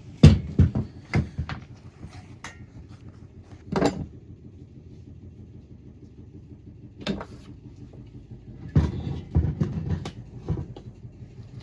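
Scattered metallic knocks and clinks of tools and parts being handled during the teardown of a VW 1300cc engine, with a cluster of them near the end, over a steady low hum.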